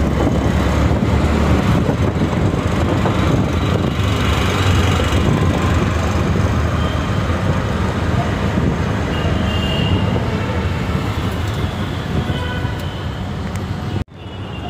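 Steady engine, road and traffic noise heard from inside a moving auto-rickshaw.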